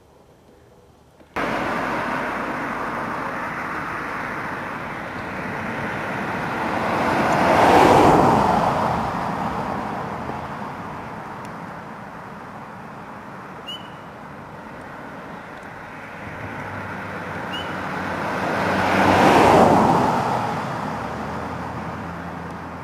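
Road traffic: two vehicles pass one after the other, each a rush of tyre and engine noise that swells and then fades. The first is loudest about a third of the way in, the second near the end, over a steady background hiss. Two short, faint high chirps come between them.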